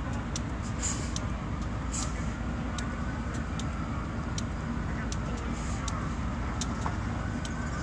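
GE B23-7 diesel-electric locomotive's 12-cylinder engine running steadily at low power as it creeps slowly past, a low rumble. Over it come a faint, thin high-pitched squeal and scattered light clicks.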